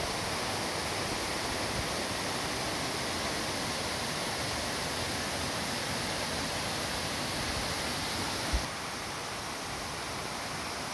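Steady rushing of water pouring over a rock cascade, an even hiss with no let-up. There is a single low thump near the end.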